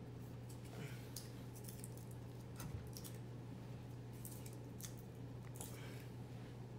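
Faint scattered clicks, taps and rustles of hands handling a partly disassembled jet ski engine block, over a steady low hum.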